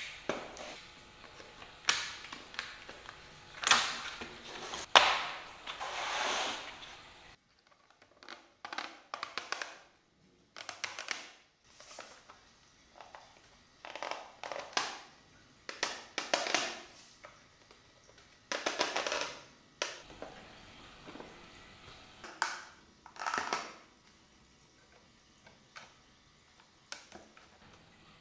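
Irregular hand-work sounds on small wooden parts: short rasping strokes of a utility knife trimming the paper on kumiko lattice panels, then clicks, taps and knocks as the wooden panels are handled and pressed into the lantern frame.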